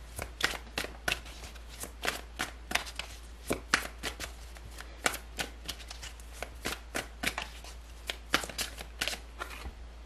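A deck of large oracle cards being shuffled by hand, the cards slapping and flicking against each other in quick, irregular clicks.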